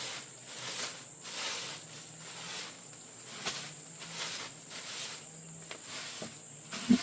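Rhythmic rustling swishes, about one every two-thirds of a second, over a steady high-pitched insect buzz. A short knock comes just before the end.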